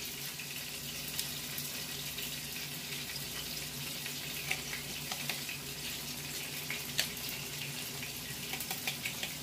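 Marinated salmon fillets sizzling in a skillet over medium heat: a steady frying hiss with scattered small crackles, one sharper pop about seven seconds in, over a faint steady hum.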